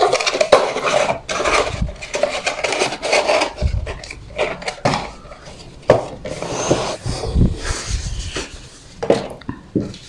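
Unboxing packaging being handled: irregular rustling and scraping of cardboard and plastic, broken by small sharp knocks and clicks.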